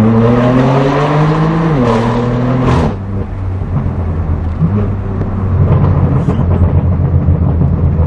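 BMW M4 F82's twin-turbo straight-six with a straight-piped exhaust, heard from inside the cabin under acceleration. The note climbs steadily for about two seconds, dips, then drops away sharply about three seconds in as the throttle comes off, and settles into a steady lower drone.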